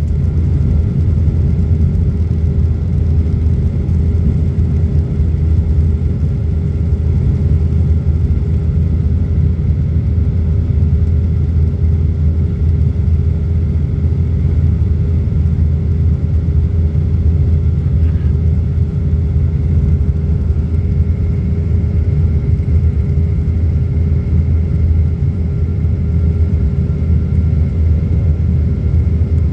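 Boeing jet airliner's engines running with a steady low rumble and drone, with a few faint steady whine tones above it and no rise or fall in level.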